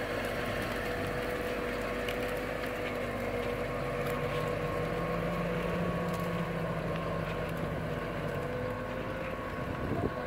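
Massey Ferguson tractor engine running at a steady note, with faint clicking from machinery.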